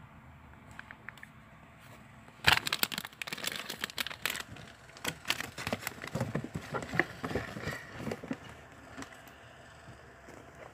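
Packaging being handled, crinkling and rustling in quick crackly runs. It starts suddenly about two and a half seconds in, at its loudest right then, and thins out near the end.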